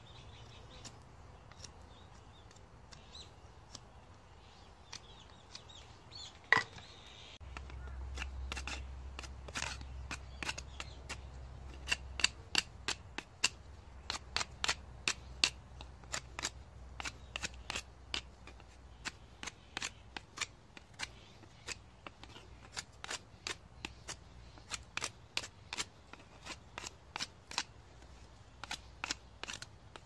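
Kitchen knife shaving and whittling a thin peeled wooden stick, a sharp tick of blade on wood with each stroke. The strokes come at roughly one to two a second from several seconds in.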